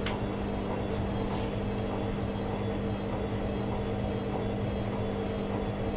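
Bosch front-loading washing machine running, its motor turning the drum with the wet load as it tries to balance the load before the spin; a steady hum with a constant low tone.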